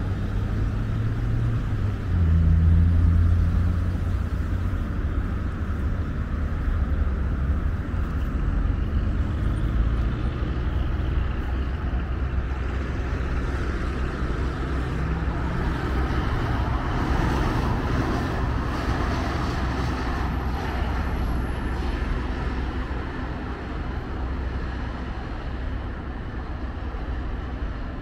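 City street traffic: motor vehicles running past in a continuous low rumble, with a deep engine hum loudest a couple of seconds in and a hiss of passing tyres swelling around the middle.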